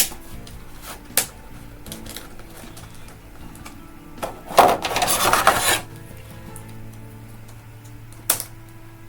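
Action-figure packaging being handled while a toy gun stuck to the back of the box is worked loose: a few sharp clicks and knocks, and a loud crackling rustle for about a second, halfway through.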